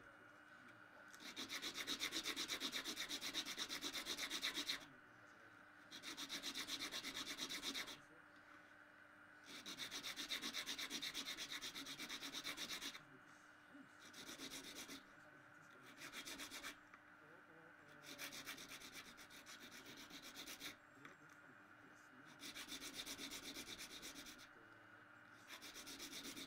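Quick, dense rasping strokes of a fine hand tool cutting and shaping a small mother-of-pearl inlay piece on a wooden bench pin. The strokes come in about eight bursts of one to four seconds, with short pauses between them.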